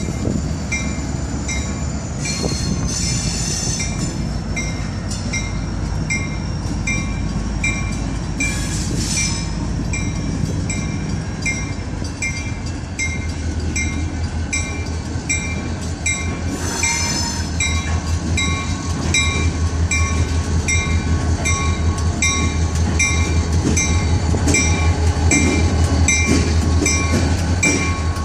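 Yard switcher diesel locomotive moving a cut of auto rack cars, its low engine rumble and rolling cars growing louder through the second half, while a bell rings steadily a little under twice a second. Two short hissing bursts are heard along the way.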